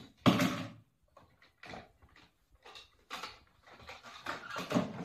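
A toddler playing with a large plastic toy backhoe loader: short, irregular bursts of handling noise and small vocal noises, the loudest just after the start and another near the end.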